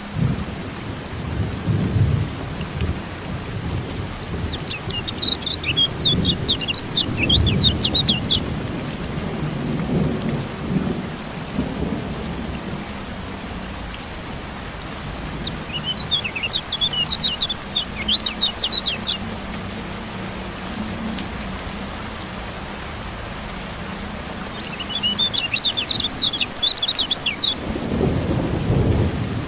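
Steady rain with low rolling thunder, and three bursts of rapid, high chattering song from a kecial kuning (a white-eye), each lasting about three to four seconds.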